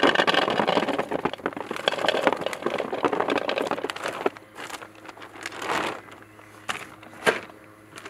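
Fishing boilies pouring out of a plastic bag: the bag crinkling and the hard round baits clattering against each other and the plastic. It is thick for about the first four seconds, then thins to scattered rustles and a few sharp clicks.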